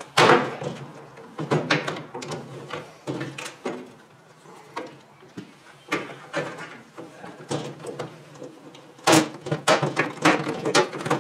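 Hands working plastic parts and wiring loose inside a microwave oven's casing: irregular plastic clacks and knocks, a sharp knock at the start and a quick flurry of them near the end.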